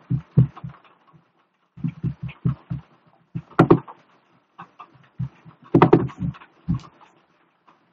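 Computer mouse clicks and dull knocks on the desk, in several short runs of a few quick strokes each.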